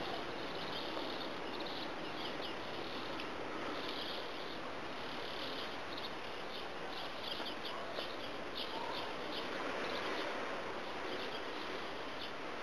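Insects chirping in short, high-pitched runs that come and go, over a steady background hiss.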